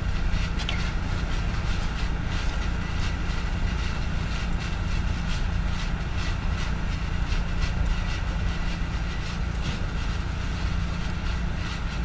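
Steady low outdoor rumble with a hiss above it, even throughout with no distinct event.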